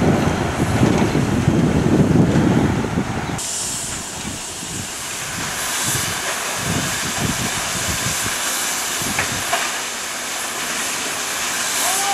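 Rumble and rail clatter of a moving train for about the first three seconds, then a sudden change to a steady hiss from a standing steam locomotive whose tender is being filled with water.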